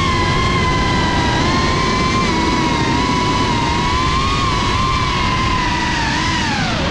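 FPV racing quadcopter's brushless motors and propellers whining, heard from the onboard camera. The pitch holds fairly steady, then drops near the end as the throttle comes off, with rushing air underneath.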